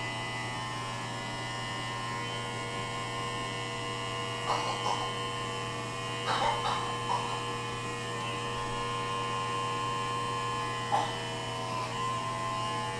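Electric razor running steadily with a constant hum as it is worked over a man's head, with a few brief short sounds over it.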